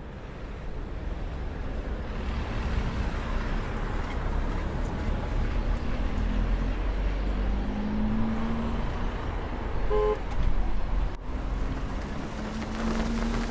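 Street traffic noise, cars running and passing, with a short car-horn toot about ten seconds in.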